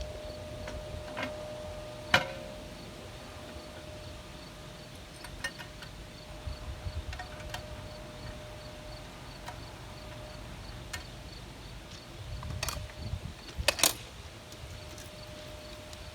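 Insects droning steadily with a faint regular pulsing chirp. A few sharp clicks cut across it, a loud one about two seconds in and a pair near the end, with low rumbling now and then.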